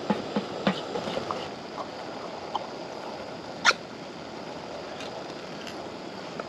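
Ground-beef and sauce mixture cooking in a pan over a camp stove: a steady sizzling hiss, with a few light clinks of the utensil against the pan in the first second and a sharp click about halfway through.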